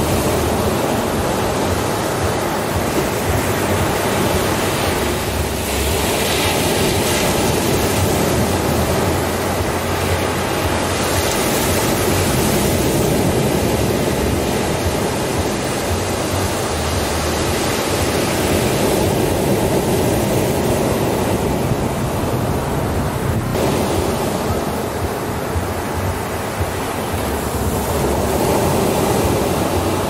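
Ocean surf breaking on a beach: a continuous rush of waves that swells and eases every several seconds.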